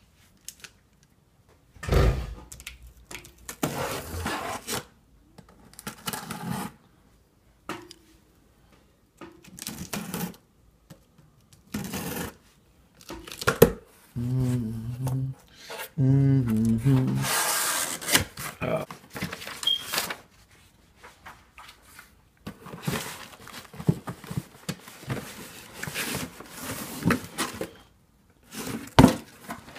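Cardboard shipping box being opened by hand: packing tape ripping and cardboard flaps rustling and scraping in irregular bursts, with the longest, loudest ripping-rustling stretch just past the middle.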